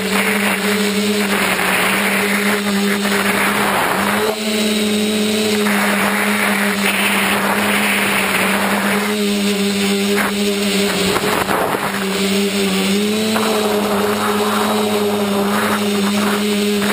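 A small motor of a first-person-view model runs at a nearly constant speed, holding one steady hum that dips briefly in pitch about 4 seconds in and again near 12 seconds. Repeated swells of rushing wind noise pass over it.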